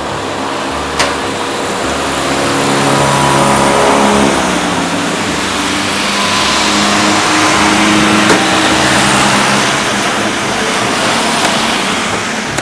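Road traffic: cars driving past with engine and tyre noise that swells and fades twice, along with a couple of short sharp clicks.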